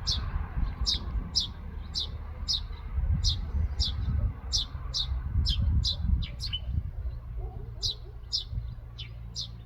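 A single small bird chirping over and over, about two short high notes a second, each sliding down in pitch, over a steady low rumble.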